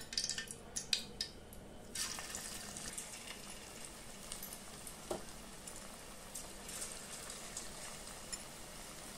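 Pakora batter deep-frying in hot oil in a steel kadai, a steady sizzle that starts about two seconds in as the fritters go into the oil. A few light clicks come before it.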